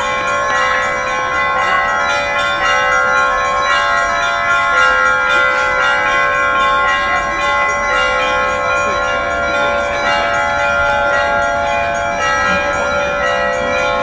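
Russian Orthodox church bells on a portable belfry ringing a trezvon, the festive peal: many bells of different pitches struck again and again, their ringing overlapping without a break.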